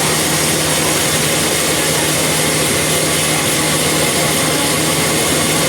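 Portable sawmill running steadily: a constant engine drone under a loud, even noise, with no change in level.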